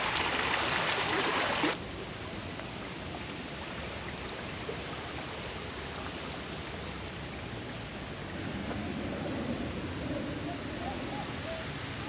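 Shallow spring-fed creek running and rippling over sand and stones, a steady rush of water. About two seconds in it drops abruptly to a much softer, steady flow.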